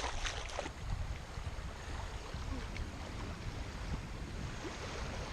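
Steady outdoor wind and water noise with a low rumble on the microphone, and a few faint clicks near the start.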